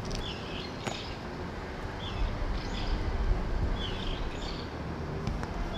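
Small birds chirping: short, hooked calls that repeat every second or two, several in pairs, over a steady low background rumble.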